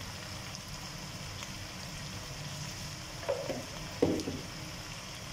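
Mutton pieces sizzling steadily in hot ghee in a wok as they brown. Two short, louder sounds come about three and four seconds in.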